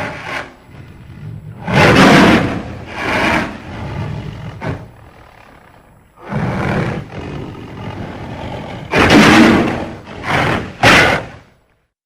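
Cartoon mongoose sound effect: a run of harsh, raspy growls, about eight short bursts, the loudest ones near the start and close to the end, then cutting off into silence.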